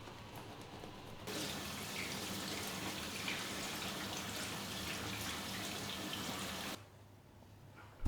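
Water running steadily in a small room, starting abruptly about a second in and cutting off near the end.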